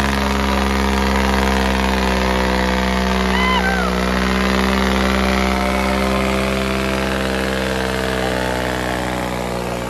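Diesel tractor engines held at high revs under full load, making a loud, steady drone as two tractors pull against each other in a chained tug-of-war. A brief high falling call cuts through about three and a half seconds in.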